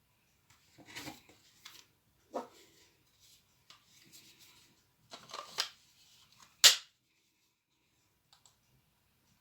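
Hands handling the plastic body of a Makita DF330D cordless drill: scattered rustles and knocks, then one sharp loud click about two-thirds through. The motor does not run.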